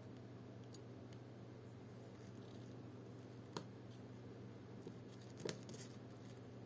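Faint, sharp clicks of small hand tools handling watch parts: a light one about a second in, a louder one past the middle, and a quick double click near the end, over a steady low hum.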